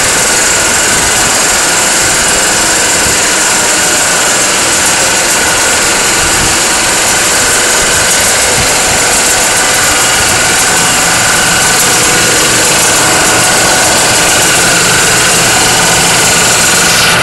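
Breathing-air compressor for scuba tanks and the diesel generator powering it, both running together. They make one loud, steady machine noise with a constant high-pitched whine over it.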